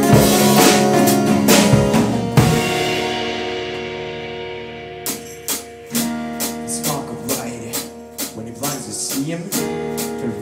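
Unplugged rock band with acoustic guitars and drum kit playing live. The band ends a passage on a hit about two and a half seconds in and lets it ring out. About five seconds in, a quieter section starts with rhythmic strummed guitar chords.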